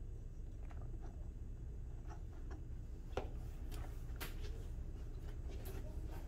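Quiet, irregular footsteps and light taps on a hard tiled floor over a low steady room hum.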